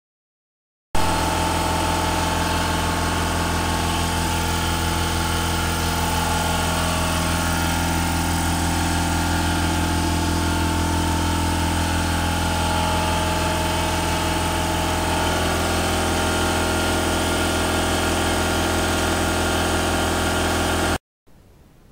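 Electric angle grinder with a surface prep pad running steadily, stripping surface rust from a sheet-steel seat pan. It starts abruptly about a second in and cuts off abruptly near the end.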